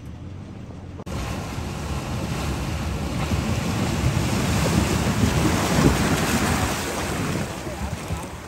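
Rushing noise of river water running over stones, mixed with wind buffeting the microphone. It starts abruptly about a second in, swells and then eases near the end.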